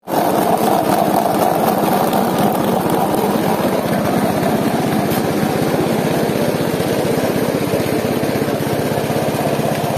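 Drum-type poultry plucking machine running steadily, its motor turning the spinning plate with rubber plucking fingers.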